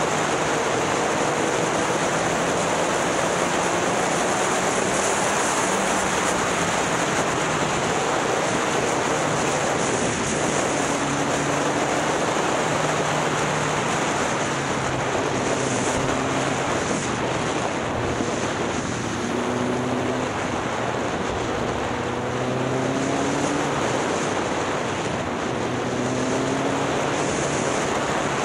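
Heavy wind noise on the microphone of a moving motorcycle, with the motorbike's engine running underneath, its pitch rising several times as it accelerates.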